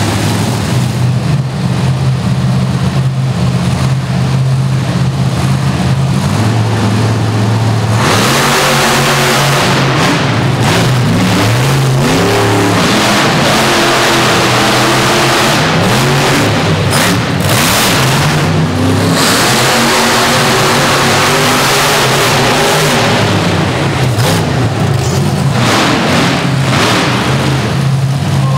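Monster truck engines: a steady low idle for about eight seconds, then engines at full throttle, their pitch rising and falling as they rev, for about sixteen seconds, before settling back to a steady idle near the end.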